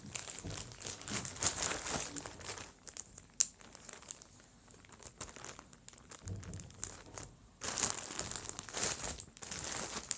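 Plastic bag crinkling and rustling in irregular bursts as slime is pushed back into it, with a sharp click about three and a half seconds in.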